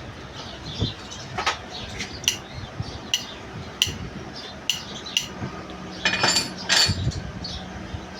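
Metal parts and tools being handled on a workbench: a series of sharp metallic clicks and clinks, then two louder ringing clanks about six and seven seconds in.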